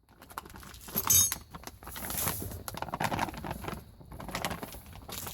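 Irregular clinks, knocks and scraping of hard objects being handled, the loudest knock about a second in.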